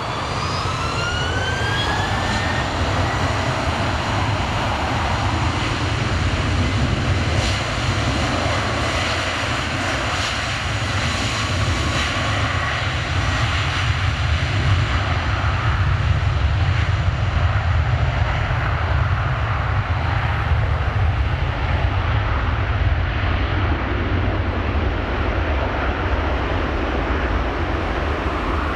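Airbus A330-300 jet engines spooling up to takeoff thrust, a rising whine over the first couple of seconds. The airliner then rolls down the runway with a steady, loud rumble, its high whine fading in the second half as it moves away.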